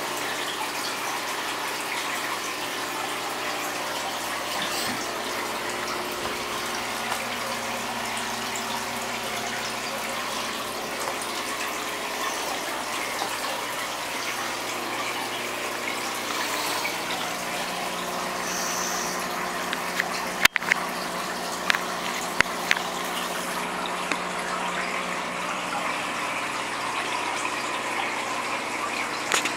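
Steady running and splashing water from a fish tank's filter, with a few sharp clicks about two-thirds of the way through.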